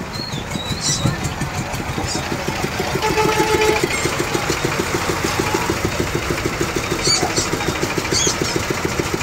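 A small engine idling close by with an even, rapid putter that becomes clear about two seconds in, over a steady crowd murmur. A few short, high chirps cut through now and then.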